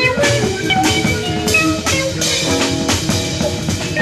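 Live jazz ensemble playing, with busy drum-kit strokes under several melodic instruments holding and shifting notes.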